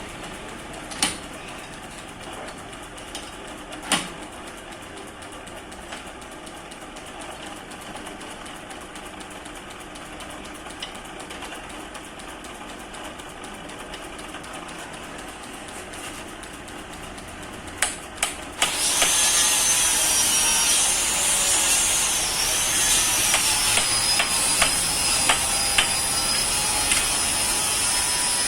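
Metal lathe machining a part, a loud grinding cutting noise with a high wavering whine that starts abruptly about two-thirds of the way in. Before that there is quieter workshop background with a few sharp knocks.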